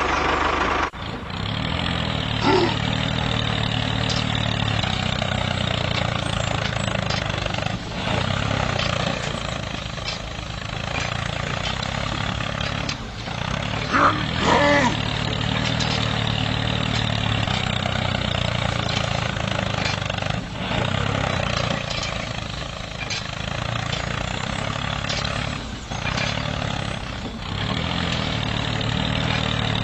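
Small model tractor's motor running steadily with a low engine-like hum, as it pulls a cultivator. A brief higher-pitched sound comes about halfway through.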